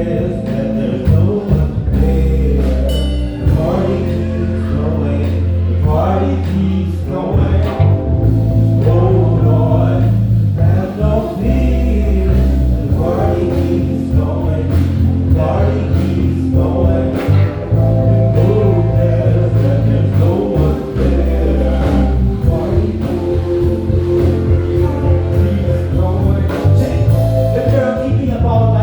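Live band playing a groove: electric bass holding long low notes, drums keeping time and keys, with held melody notes above.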